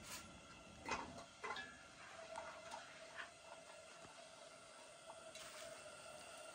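Green stalks handled and dropped into a metal cooking pot: a few light taps and clinks in the first three seconds, then softer ticks, over a faint steady hum.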